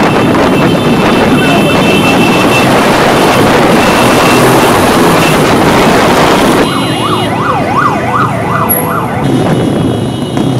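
Loud, dense traffic and engine noise from a motorcade. About two-thirds of the way in, an escort siren takes over, its pitch sweeping rapidly up and down about three times a second.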